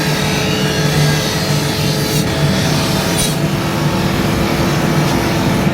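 A workshop machine's motor running steadily, with a constant hum and a rough grinding hiss over it.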